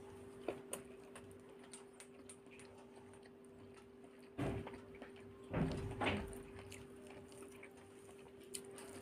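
Hand-eating sounds over a steady low hum: a few soft mouth clicks while chewing boiled egg, then, about halfway, two louder thuds and squelches as fingers mash egg and curry into rice on a plate.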